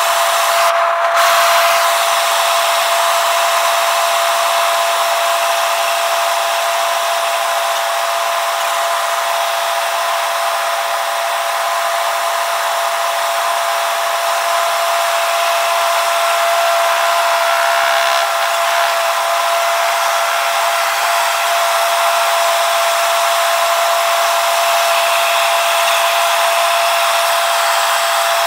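Steady in-cabin noise of a light helicopter in flight: the engine and rotor drone with a constant high whine running through it.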